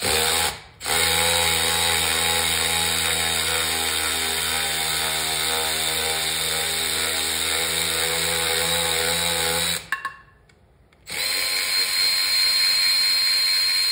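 Cordless electric driver gun spinning out the connecting-rod bolts of a Super Rhino 2 engine. It runs in a short burst, then a long steady run of about nine seconds, stops for about a second, then runs again.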